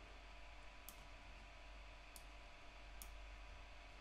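Three faint computer mouse clicks about a second apart, over near-silent room tone with a steady low hum.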